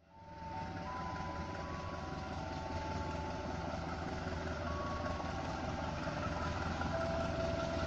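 Distant CC201 diesel-electric locomotive approaching with its train, the diesel engine running as a steady low hum that slowly grows louder, with a few faint steady whines above it.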